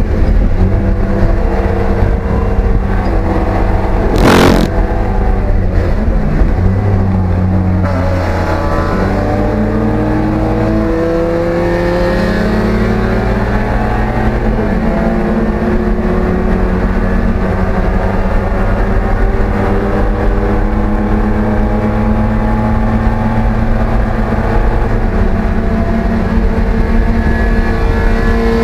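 Race car engine heard from inside the cabin under hard acceleration. Its pitch climbs in steps, holds high for a long stretch, then falls near the end. A brief loud rush of noise comes about four seconds in.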